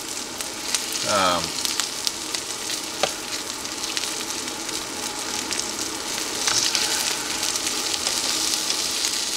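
Bacon and sausages sizzling and crackling on a Farberware electric nonstick griddle, with a few sharp clicks as metal tongs turn the bacon strips. A faint steady hum sits under the sizzle, which is the griddle's own humming that the owner finds unusually loud.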